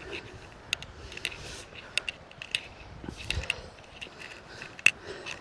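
Irregular light clicks and taps, one louder near the end, over a faint steady hiss.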